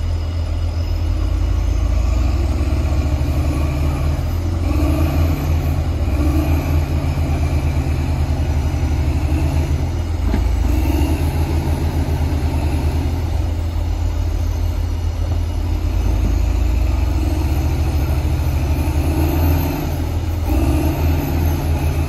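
Heavy diesel engine running hard under load, a deep steady drone that revs up and eases back down several times.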